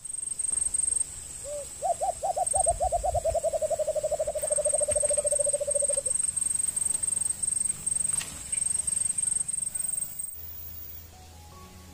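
Rural outdoor ambience: a high, pulsing insect trill that cuts off suddenly near the end, and a rapid series of about thirty hoot-like animal calls, slightly falling in pitch, a couple of seconds in.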